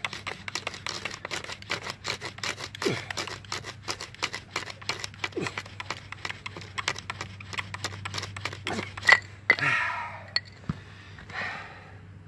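Bow drill being worked fast: the wooden spindle squeaks and grinds in the fireboard notch with rapid, even back-and-forth strokes of the corded bow. The strokes stop with a sharp knock about nine seconds in, followed by heavy breathing. This attempt gives no coal, which the maker blames on wood that is too hard or too soft.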